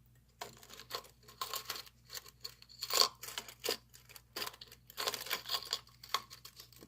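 Handling noises of someone rummaging through small lockpicking tools: irregular bursts of rustling, crinkling and light clicking.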